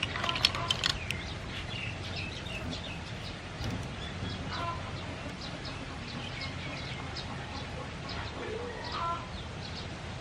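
Sea snail shells clicking against each other in a woven basket as they are handled during the first second. Short bird calls follow here and there over a steady low background noise.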